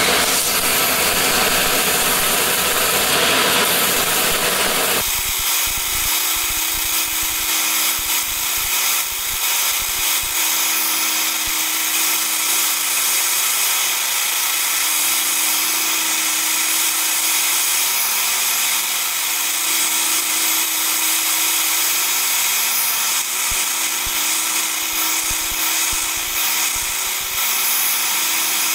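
Belt grinder running, with a wooden knife handle pressed against the abrasive belt: a steady sanding hiss over the machine's hum. About five seconds in, the low rumble drops away.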